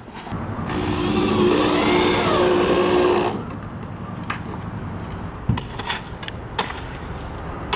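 A motor runs loudly for about three seconds, its pitch rising and then falling. It is followed by three knocks about a second apart: a pick mattock striking gravelly soil while digging out a post hole.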